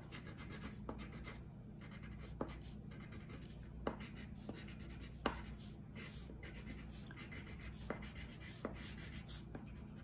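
Wax crayon rubbing on paper in short colouring strokes, with a few faint taps.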